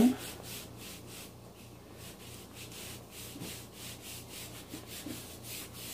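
Hands rubbing flour along a wooden rolling pin in quick, even, repeated strokes, a dry rubbing hiss, to keep pie-crust dough from sticking to it.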